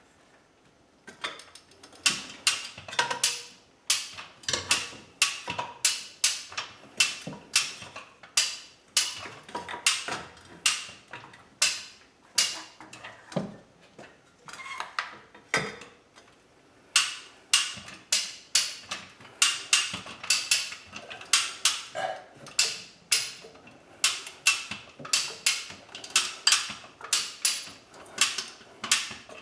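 Sharp clicks or taps, about two a second, keeping an uneven rhythm from about a second in, like a hand tool being worked against metal.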